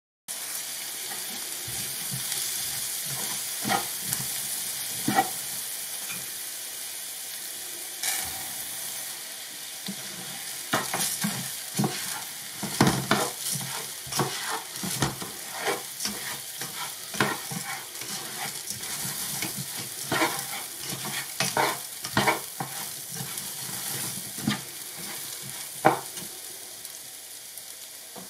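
Diced sweet potato, red pepper and red lentils sizzling steadily in oil in a nonstick pan, with a plastic slotted spatula scraping and knocking against the pan as they are stirred. The scrapes are sparse at first and come thick and fast through the middle.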